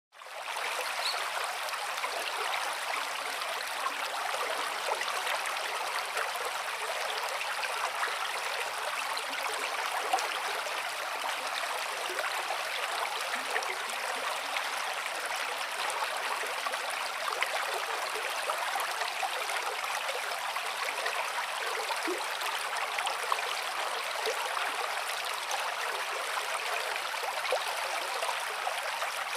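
Steady rushing of flowing water from a small river, running evenly without a break.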